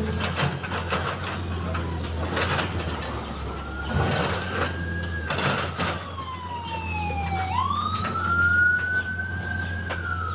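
Road-construction noise: a steady low machine rumble with a few knocks in the first half, and a wailing tone that slowly rises and falls in pitch, jumping back up about three quarters of the way through.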